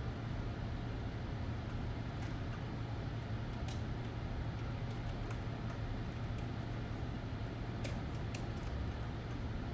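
Steady low hum with scattered light clicks and taps from PC cables and connectors being handled and plugged in.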